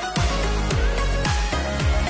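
Background music with a steady electronic beat: a deep kick drum that drops in pitch about twice a second, under a melody.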